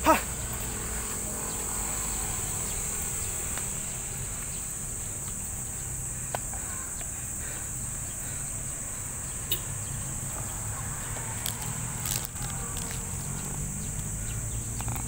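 Insects droning steadily and high-pitched over a low traffic rumble. A sharp knock right at the start and a few later knocks and rustles come from the phone brushing against a plastic sauna jacket.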